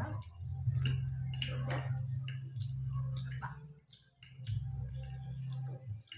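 Forks clicking and clinking against plates while spaghetti is twirled and eaten, with mouth sounds of eating. Under it runs a loud low hum that drops out for a moment a little past the middle.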